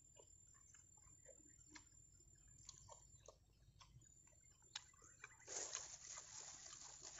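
Faint chewing with small scattered clicks, then, from about five and a half seconds in, a small plastic bag of sauce crinkling as it is handled.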